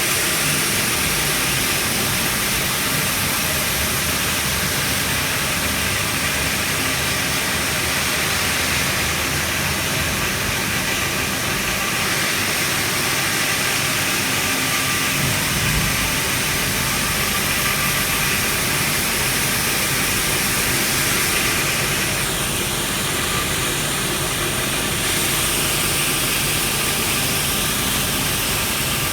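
Wire saw machine for cutting stone blocks running: steady machine noise with a strong hiss.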